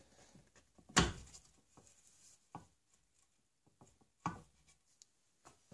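Sharp knocks and handling on a wooden gunstock as its steel rifle barrel is worked loose and pulled out of the barrel channel: one loud knock about a second in, another about four seconds in, with light rubbing and small ticks between.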